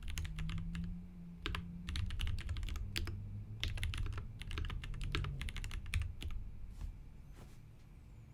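Typing on a prototype tenkeyless mechanical keyboard with lubed Durock T1 tactile switches and GMK keycaps: a quick run of keystrokes that thins out and stops about six to seven seconds in, over a low steady hum.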